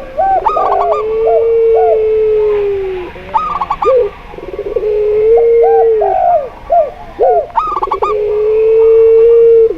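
Several doves cooing together: three long, drawn-out steady coos, each lasting about two seconds, overlapping with clusters of short, quick, higher coo notes. This is a mixed chorus of zebra dove, spotted dove and barbary (pelung) dove calls.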